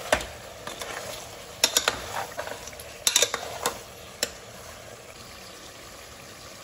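Metal spoon stirring spiced chicken pieces in an aluminium pressure cooker, clinking and scraping against the pot in short bursts for about the first four seconds, over a steady frying sizzle that then continues on its own.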